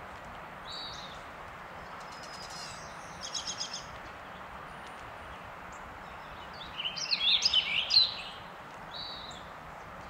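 Wild songbirds calling over a steady background hiss: a short call near the start, a quick trill of about six notes, then the loudest part, a busy burst of song lasting over a second, and one more short call near the end.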